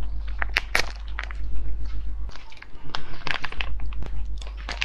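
A cold noodle soup sachet crinkling and tearing as it is bitten open by the teeth. It crackles again as it is squeezed out.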